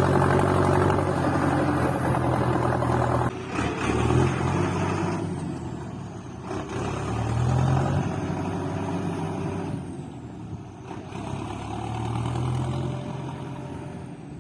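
Valtra BM125i tractor's diesel engine on a straight-through exhaust, running with its note swelling and easing several times. The level drops suddenly about three seconds in, then fades gradually.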